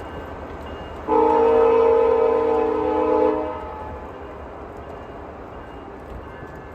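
Locomotive air horn sounding one long chord of several tones for about two and a half seconds, then fading, over a steady low rumble.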